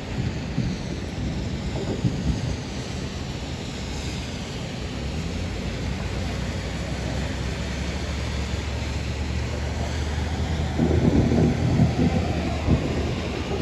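Thunderstorm: steady rain and wind noise, with a low rumble of thunder that builds from about five seconds in and is loudest near the end.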